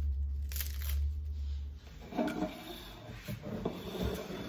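Lettuce being handled and cut on a chopping board: a low rumble of handling noise first, then rustling and scraping with small knocks in the second half.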